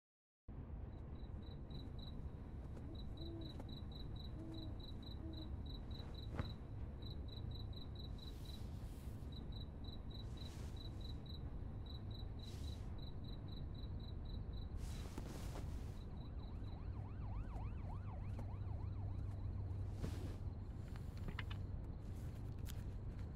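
Cricket chirping in an even run of short, high chirps, about three a second, that stop about two-thirds of the way through, over a faint steady low hum.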